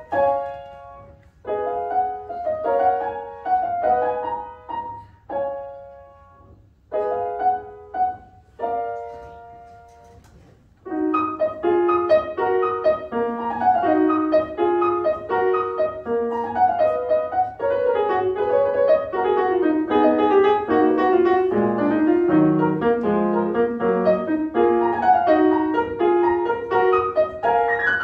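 Grand piano played solo: short phrases broken by pauses for about the first ten seconds, then a continuous flowing passage of running notes that dips into the low register partway through.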